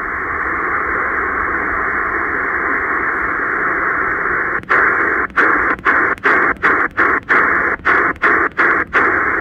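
Steady shortwave static from the Choyong LC90 receiver in upper sideband on the 20-meter amateur band: a narrow hiss with no station on the frequency. After about four and a half seconds, the hiss starts cutting out briefly about twice a second as the tuning knob steps the radio up the band.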